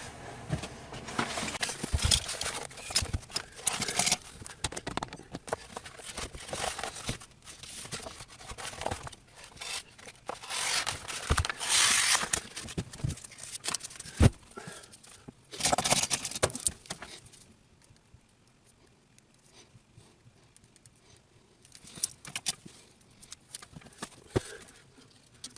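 Hands handling sheet material and packaging: intermittent rustling and tearing with scattered knocks and clicks. It goes quiet for a few seconds about two-thirds of the way through, then a few clicks resume.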